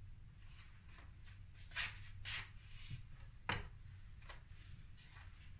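Faint kitchen handling sounds: two short scrapes about two seconds in, then a sharp click, over a low steady hum.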